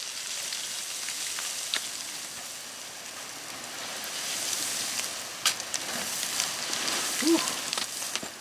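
Boots shuffling and crunching down loose shale scree, with sharp clicks of trekking-pole tips striking the rock now and then.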